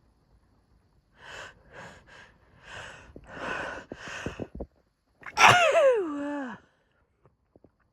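A woman's hitching build-up to a sneeze: about six short, breathy catching gasps, then one loud sneeze a little over five seconds in, its voiced tail sliding down in pitch.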